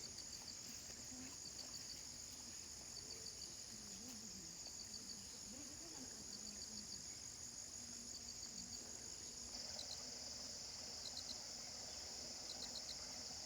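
Insect chorus, likely crickets: a steady high-pitched buzz throughout, with short chirps in groups of three or four repeating about every second and a half. The buzz grows a little louder about two-thirds of the way through.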